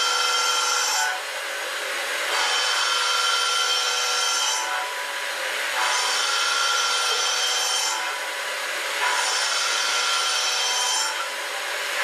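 End mill trochoidal-milling a titanium blisk with liquid-nitrogen through-tool cooling and MQL: a loud, steady cutting hiss with a whining tone that eases off for about a second roughly every three and a half seconds, in step with the looping trochoidal toolpath.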